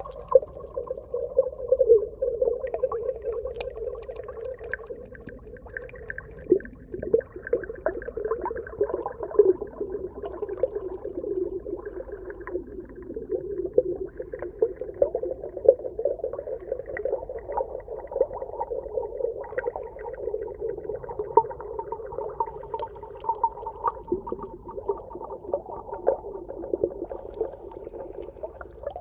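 Underwater ambience: a continuous wavering mid-pitched tone with a fainter higher layer, sprinkled with many short crackling clicks.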